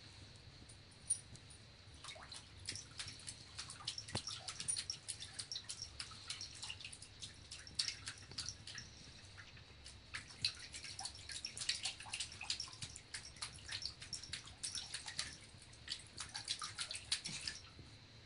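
Small splashes and drips of water as a Bengal cat paws and scoops at shallow water in a bathroom sink: a quick, irregular patter of splashes, with a brief lull about halfway.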